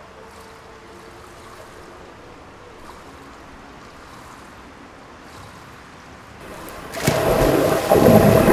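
Quiet, steady swimming-pool hall ambience. About seven seconds in, a swimmer dives into the pool, followed by a loud rush of splashing and underwater bubbling.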